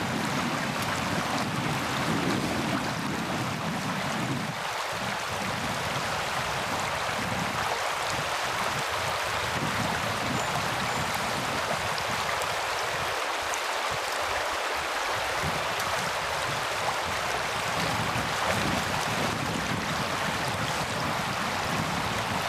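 Shallow, rocky river riffle rushing steadily: an even hiss of moving water, with a low rumble underneath that drops away briefly about four seconds in and again midway.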